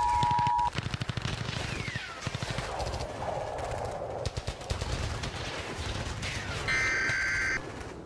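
The two-tone EAS attention signal cuts off under a second in. It gives way to rapid machine-gun fire lasting several seconds. Near the end comes a short, loud burst of EAS digital data tones (SAME header screech).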